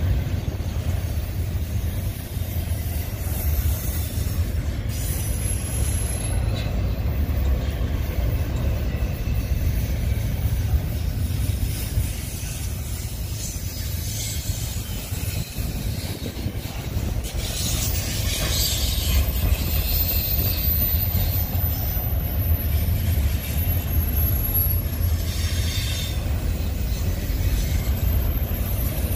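Double-stack container well cars of an intermodal freight train rolling past: a steady low rumble of steel wheels on the rails. Thin high wheel squeals come and go a few times.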